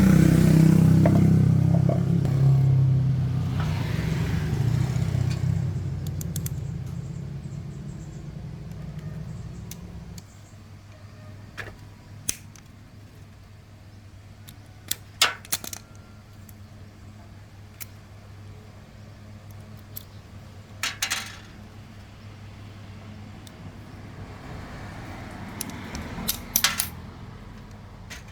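A steady low mechanical hum fades over about ten seconds and cuts off suddenly. Then come scattered light metallic clinks and clicks of small metal parts and tools being handled.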